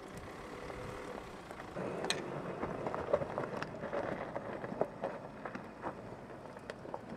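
Mercedes-Benz X-Class pickup driving slowly over a rocky dirt track: its engine runs under irregular crunches and clicks of loose stones under the tyres.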